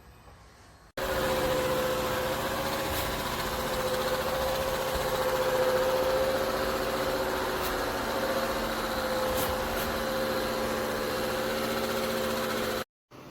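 Roborock Qrevo Pro robot vacuum and mop running: a steady motor hum with a constant whine, starting abruptly about a second in and cutting off suddenly near the end.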